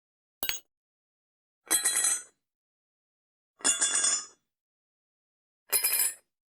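Coins dropped into a bowl, four separate drops: a short clink about half a second in, then three longer jingling spills of several coins, each with ringing metallic tones.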